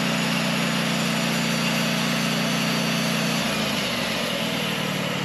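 Portable band sawmill's engine running steadily under load, its engine note changing about three and a half seconds in.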